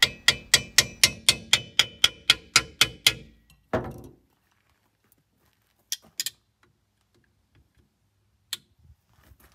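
Trigger spray bottle squeezed rapidly, about four squirts a second for some three seconds, soaking a water pump's snap ring in oil. Then a single knock and a few faint taps.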